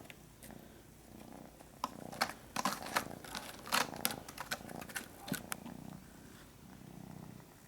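Kitten purring in slow in-and-out pulses, with scattered sharp clicks and scratches as it plays at a scratching post.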